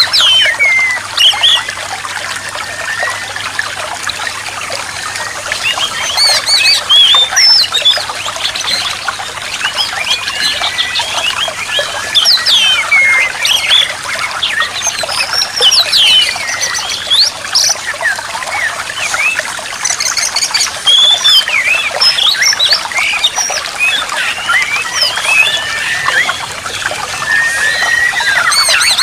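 Songbirds chirping and whistling densely, with quick rising and falling notes, over a steady trickle of running water: kacer therapy audio for an oriental magpie-robin that has stopped singing.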